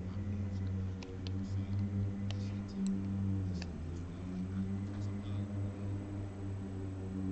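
Faint, scattered clicks and taps of a diamond painting drill pen picking up and setting resin drills on the canvas, over a steady low hum.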